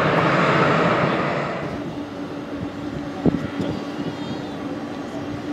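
Airbus A320 jet engines running loud as the airliner rolls along the runway, the noise falling away about a second and a half in. After that a quieter steady hum remains, with a single knock about three seconds in.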